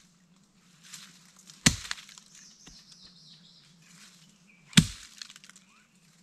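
Sharp chops of a blade striking vegetation: two loud strikes about three seconds apart, with dry leaves crackling and rustling between them.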